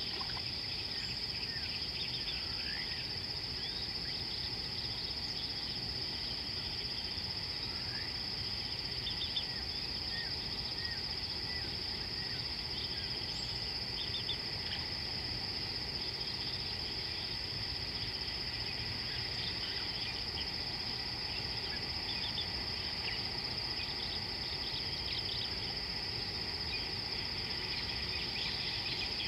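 Steady high-pitched insect chorus running without a break, with scattered short chirps above a low, even rumble.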